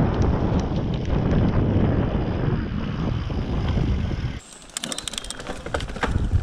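Wind buffeting the action-camera microphone over the rumble of a mountain bike's tyres and frame on a fast dirt-trail descent. About four seconds in the rumble drops suddenly and a quick run of sharp clicks and rattles follows, then the rumble builds again.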